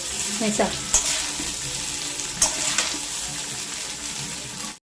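Cooked rice sizzling in oil in a hot pan while it is stirred, with a few scrapes of the spatula against the pan.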